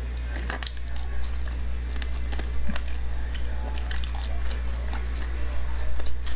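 Close-miked chewing of a chicken wing: biting and wet mouth sounds with irregular small clicks and crackles, over a steady low hum.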